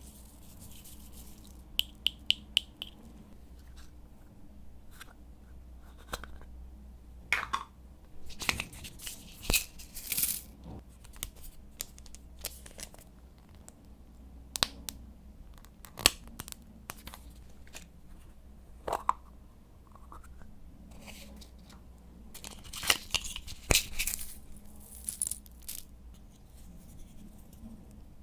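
Slime being kneaded and stretched by hand: scattered sticky clicks, pops and short crackling squelches, with a quick run of clicks about two seconds in.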